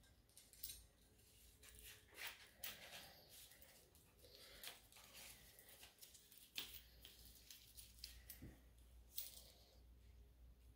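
Near silence: room tone with a faint low hum and scattered soft clicks and rustles.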